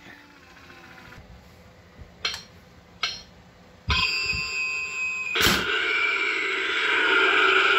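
Tekky Toys Slice of Terror animated Halloween toaster prop: a couple of faint clicks, then its electronic sound effects start abruptly about four seconds in. A sharp clack comes about a second and a half later as the skeleton hand pops up out of the slots, and the sound effects carry on.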